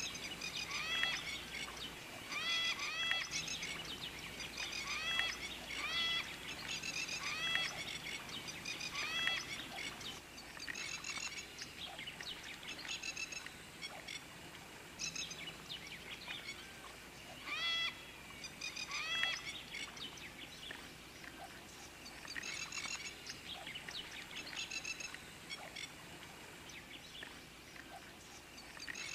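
Several birds calling: a short looping whistled phrase repeated every second or two, with scattered chirps around it, busiest in the first ten seconds and thinner after.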